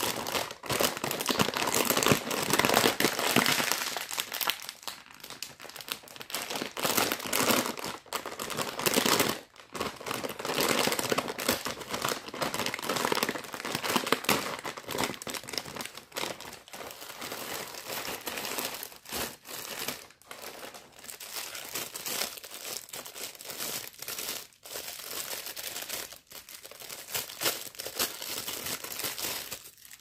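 Shiny plastic snack bag crinkling as hands squeeze, fold and pull it open, in a continuous crackle broken by a few brief pauses. It is louder over the first half.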